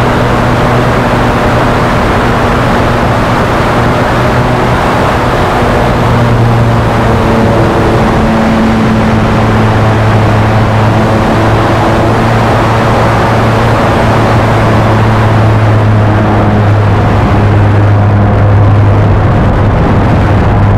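The 60cc gasoline engine of a large radio-controlled Spitfire running steadily in flight, heard from a camera on the tail with wind noise over the microphone. Its low drone shifts a little in pitch a few times.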